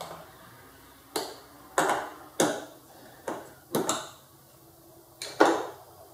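Sharp metallic clicks and knocks, about eight at uneven spacing. They come from a screwdriver and hose clamp working against the metal as the air filter's rubber intake boot is forced onto the carburetor of a Honda Recon 250 ATV, a tight fit that is hard to get on.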